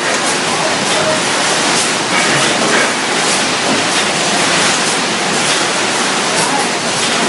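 Steady, loud hiss-like machinery noise from an ice-bag palletizing line, with conveyors running and a robotic palletizer working.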